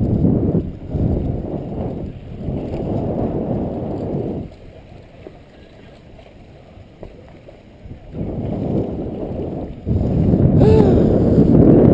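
Wind buffeting the action camera's microphone as a low rumble in gusts, dying away for a few seconds in the middle and coming back strongly near the end.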